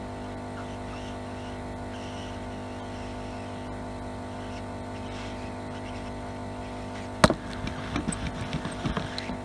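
Hot-air plastic welder's blower running with a steady hum. About seven seconds in comes one sharp knock, followed by a second or so of light clattering.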